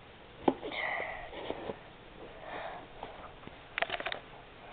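A person sniffing, with a single click early and a quick run of light clicks near the end.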